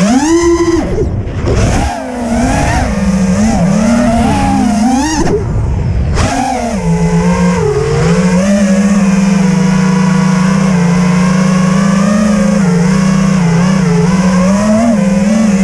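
Five-inch FPV freestyle quadcopter's T-Motor F40 Pro II brushless motors spinning Azure 5140 props, heard from the onboard camera: a motor whine that climbs sharply with a throttle punch at the start, falls away twice when the throttle is chopped, then holds a fairly steady pitch while cruising.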